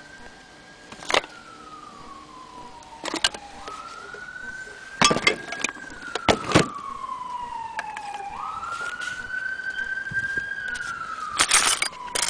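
A siren wailing in slow cycles, sweeping up quickly, holding, then sliding down, about every four to five seconds. Over it come sharp clicks and knocks of metal parts being handled, loudest about five to six seconds in and near the end.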